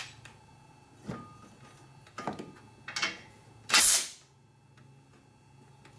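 Short burst of hissing air about four seconds in, as a plug or cap is pulled from a new A/C condenser and lets out the air it was shipped pre-charged with, which shows it held pressure after its factory air test. Before it, a few light clicks and knocks.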